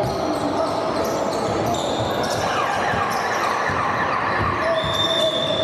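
Basketball game sounds in a large echoing sports hall: a ball bouncing on the hardwood floor, sneakers squeaking and players' voices. A steady high tone starts about five seconds in.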